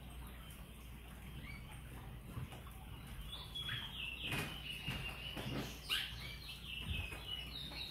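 Small birds chirping in quick, short, gliding calls from about three seconds in, over quiet room sound, with a few sharp knocks, the sharpest near six seconds.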